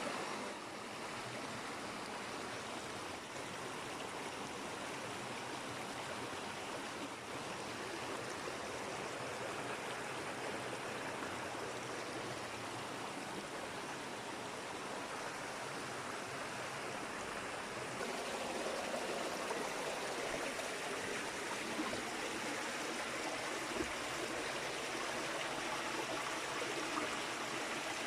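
Creek water flowing in a steady rush, growing a little louder about two-thirds of the way through.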